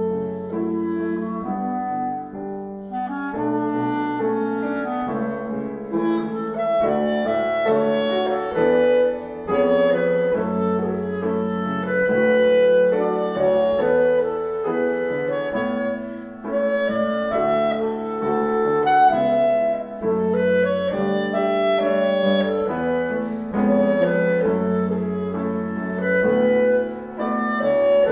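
Clarinet and grand piano playing a duet: the clarinet carries a melody of held notes over a flowing piano accompaniment.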